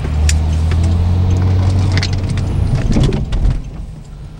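Car engine and road noise heard from inside the cabin: a steady low hum that dies down about three and a half seconds in as the car slows to turn off the road, with a few scattered clicks.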